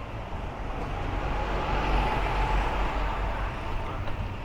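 Vehicle noise: a low rumble with a hiss over it that swells to its loudest about two seconds in and then eases off.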